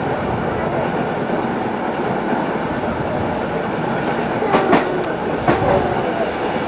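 A class tram running along the light rail track with a steady rumble, then about two-thirds of the way through three sharp wheel clicks as it rolls over points and rail joints.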